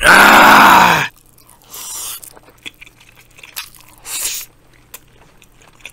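A man's loud, raspy 'kha' exhale, about a second long, right after knocking back a shot of soju. Quieter chopstick clicks and chewing follow as he eats a bite of fried egg.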